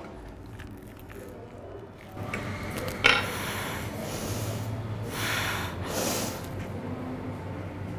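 A fork clicking against a plate and noisy eating, then a few sharp, snorting sniffs.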